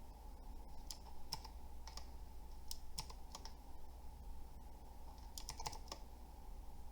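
Keys being pressed at an irregular pace on a Pictek tenkeyless mechanical keyboard: scattered single clicks, with a quick run of several presses about five and a half seconds in.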